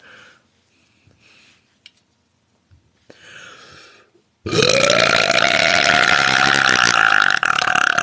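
A woman's loud, long burp, starting a little past halfway through and held at a steady pitch for several seconds, after a few faint small sounds.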